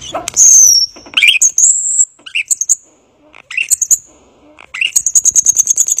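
Common starling singing: a high falling whistle, then a string of clicks and short whistled notes, and in the last second or so a fast, high rattling run of repeated notes.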